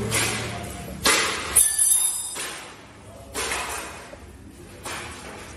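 Several sharp knocks and clanks of tools and metal pieces being handled on a tiled floor. The loudest comes about a second and a half in and rings briefly like struck metal.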